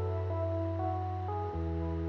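Background instrumental music: held notes stepping in pitch over a low sustained bass note that changes about one and a half seconds in.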